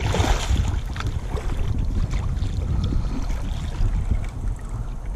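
A sturgeon splashing at the surface beside a small boat in the first half second, then water sloshing along the hull under a low wind rumble on the microphone.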